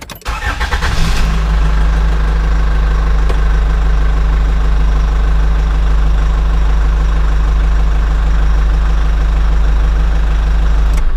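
An engine starting up, catching within the first second or so and then running steadily at idle with a deep low hum.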